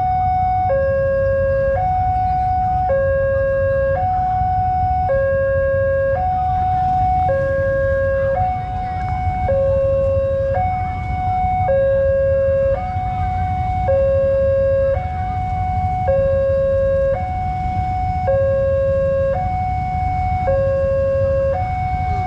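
Railway level-crossing warning alarm sounding its two-tone electronic signal, a lower and a higher tone alternating evenly about once a second, warning that a train is approaching.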